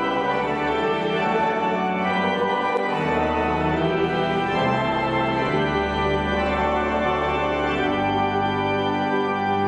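Church organ playing held chords, the bass note changing about three seconds in and again near the end.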